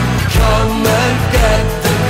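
Background music with a steady beat and a melody line that bends up and down.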